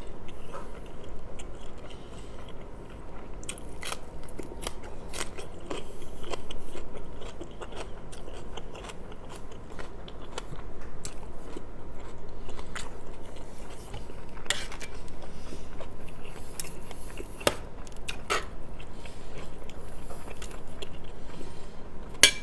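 Close-miked chewing and wet mouth sounds of a person eating rice and stewed meat, with scattered sharp clicks and taps throughout.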